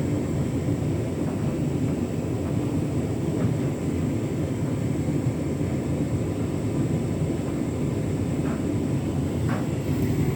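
Beko WTK104121W washing machine turning its drum in a hot drum-clean wash: a steady rumble of the motor and sloshing sudsy water, with a few faint clicks.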